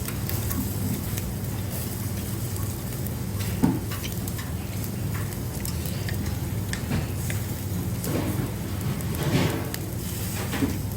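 Pork belly sizzling on a grill, an even crackling hiss with scattered small clicks and one sharper knock a little under four seconds in, over a steady low hum.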